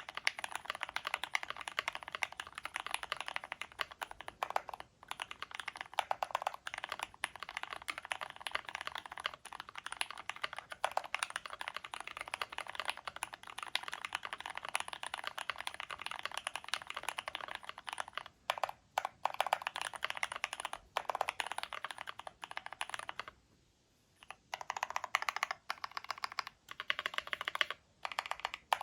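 Fast, continuous typing on a KBD75v3 mechanical keyboard with lubed Gateron Milky Brown tactile switches, an aluminum plate, case and plate foam, and PBT keycaps: a dense run of quick keystrokes. About three-quarters of the way through it pauses for about a second, then goes on in shorter bursts.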